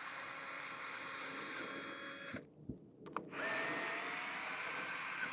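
Cordless power drill/driver running in two spells, stopping about two and a half seconds in and starting again a second later, backing out the bolts of a bicycle stem.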